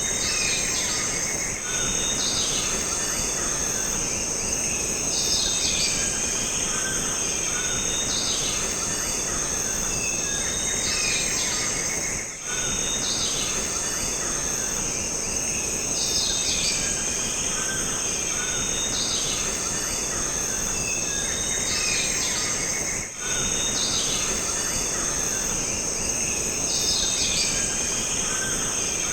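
Jungle ambience: a steady high insect drone over a dense hiss, with bird calls repeating every second or two. The sound drops briefly twice, about a third and about four fifths of the way through.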